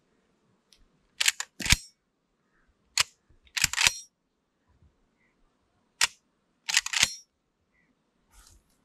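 The action of a Sarsilmaz SA-X700 12-gauge semi-automatic shotgun being worked by hand. It gives sharp metallic clacks of the bolt and charging handle, in four clusters of one to several clacks each, the last one fainter.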